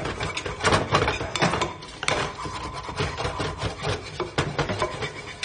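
Scrubbing and scraping at a kitchen counter, with frequent sharp knocks and clatter of kitchen things, as a mess is cleaned up.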